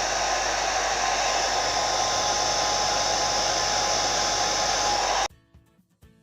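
Hand-held hair dryer blowing steadily on its warm setting with the cool-shot button held, a rushing air noise with a faint steady whine; it cuts off suddenly about five seconds in.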